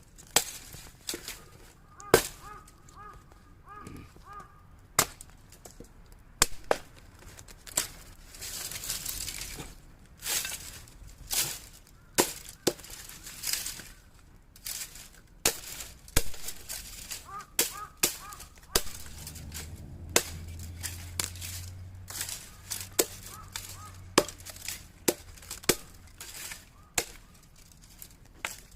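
Heavy chopping knife striking repeatedly, sharp irregular chops roughly once a second, some much louder than others.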